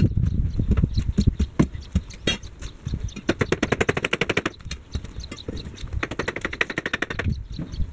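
A fast, dense run of knocks and thuds from a steel tamping bar packing earth around the base of a timber gate post, with the footage sped up.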